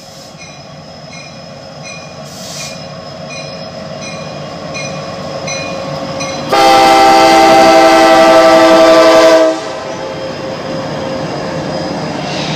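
CSX diesel freight locomotive approaching and passing, its running sound growing steadily louder, with one long horn blast of about three seconds a little past halfway. A grade-crossing bell dings about twice a second underneath.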